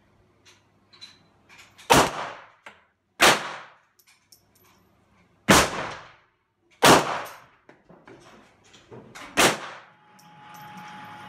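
CZ 75 pistol in 9x19 firing five single aimed shots at uneven intervals, one to two and a half seconds apart, each crack ringing briefly off the range's walls. A faint steady hum comes in near the end.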